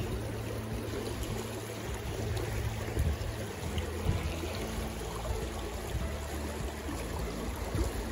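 Shallow river current rushing and rippling over a rock ledge, a steady wash of water, with a couple of soft knocks a few seconds in.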